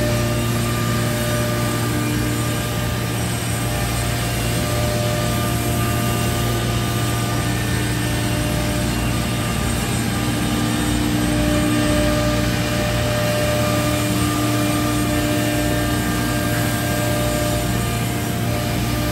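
Biesse CNC router and its dust extraction running: a loud, steady machine drone with a low hum and a few held tones that swell and fade.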